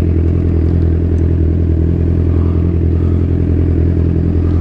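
Kawasaki Z1000's inline-four engine running steadily, its note holding level without revving up or down.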